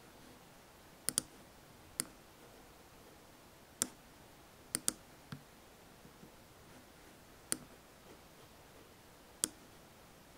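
Computer mouse clicks, about nine sharp clicks scattered over ten seconds, some in quick pairs, as settings in video-editing software are changed.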